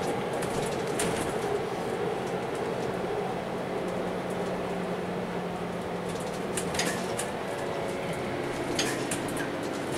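Interior sound of a Euro 6 MAN NL323F A22 Gemilang bus under way: a steady engine and drivetrain hum, with a higher whine that rises in pitch over the last few seconds. Several brief interior rattles.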